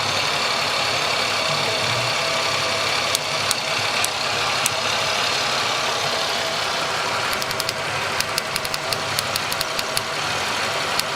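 1997 Chevrolet Malibu engine idling steadily while it is checked for an intermittent rough idle. A few sharp ticks come early on, and a fast run of ticks follows in the second half.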